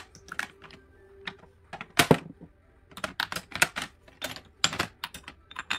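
Glass perfume bottles clinking and knocking against each other and the metal tray as they are shifted to fit another bottle in: scattered sharp clicks, one louder knock about two seconds in, then a quick run of clicks.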